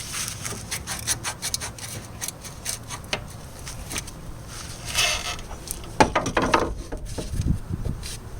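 Hand work on disc brake parts: a run of light clicks and knocks of tools and metal parts, with rubbing and scraping that is loudest about five seconds in and again about six seconds in.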